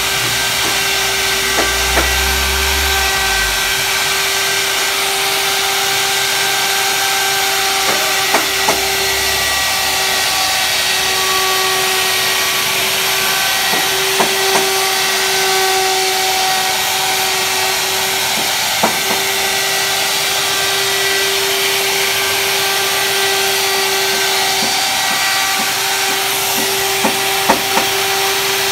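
Handheld electric wood router running at speed and cutting into a wooden door frame: a steady high-speed motor whine over a constant hiss of chips being cut, with a few sharp knocks scattered through it.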